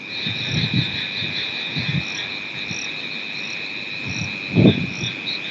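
Night insect chorus, crickets trilling in a steady high drone with short repeating pips above it. Under it runs an uneven low rumble, with one brief muffled thump near the end.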